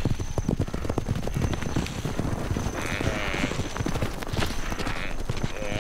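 Wildebeest hooves drumming rapidly and irregularly as the herd stampedes from a charging lioness. A short animal call comes about three seconds in.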